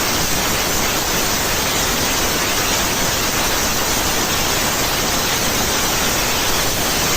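Unitor plasma cutter cutting metal: the arc and air jet make a loud, steady hiss that holds without a break.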